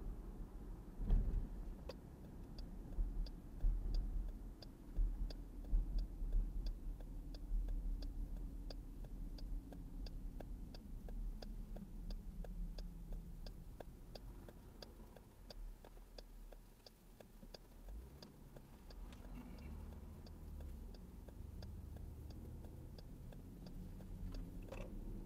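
A car's turn-signal indicator clicks steadily, about three clicks every two seconds, for a right turn at traffic lights, and stops shortly before the end. Under it the low road and engine rumble of the moving car is heard from inside the cabin.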